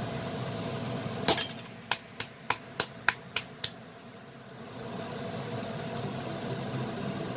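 Sharp clinks of a glass sauce bottle being tapped against a metal spoon over an enamel bowl to get the thick sauce out: one loud clink, then seven quicker, lighter taps about three a second.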